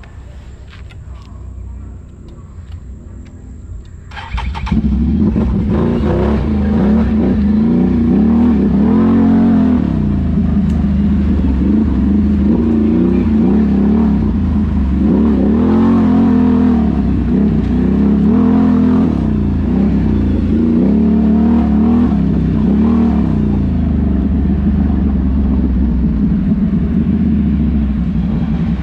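ATV engine under way, its pitch rising and falling again and again with the throttle. It is much quieter for the first four seconds or so, then gets loud.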